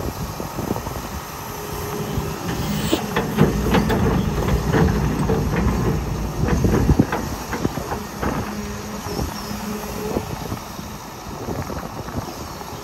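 A tracked excavator's diesel engine working under load. About three seconds in it grows louder for a few seconds, with a run of sharp metal clanks and knocks, then eases back to a steady run.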